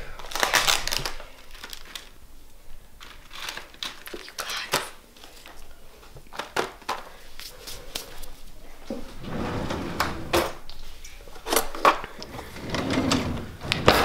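Scattered clicks, knocks and rustling from handling cookies in an open plastic Oreo package, with low voices.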